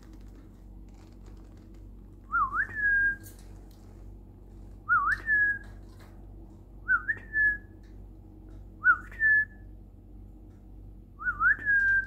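A short whistled call, a quick upward sweep settling into a held note, repeated five times about every two to two and a half seconds.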